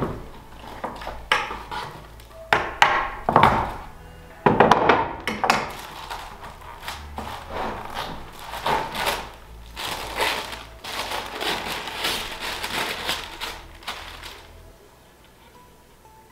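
Sharp knocks of a hand tool on a wooden plywood form as epoxy-cast panels are worked loose, followed by crinkling and rustling of a clear plastic lining being peeled away, which stops near the end.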